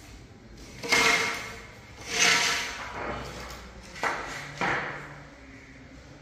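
Wooden skirting strip knocking against the tiled floor and wall as it is set in place: four knocks, the last two about half a second apart.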